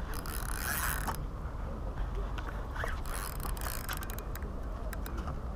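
Spinning fishing reel and tackle handled close to the microphone: irregular mechanical clicks and rubbing over a steady low rumble, with a bunch of quick clicks about three seconds in.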